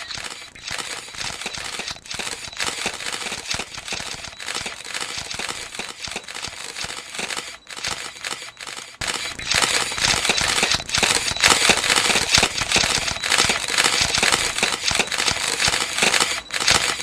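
Camera shutters clicking in rapid, overlapping succession, growing denser and louder about halfway through.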